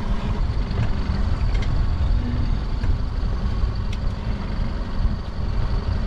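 Steady low rumble of wind and boat noise on a small open fishing boat while a crab-pot rope is hauled in by hand, with a few faint clicks.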